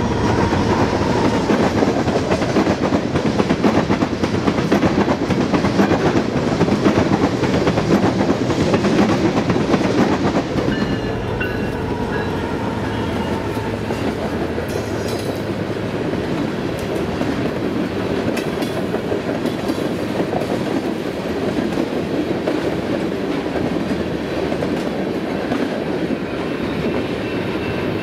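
Freight train of tank cars rolling past behind BNSF diesel locomotives: a steady rumble with wheels clattering over the rail joints. The sound eases somewhat about ten seconds in as the train moves away.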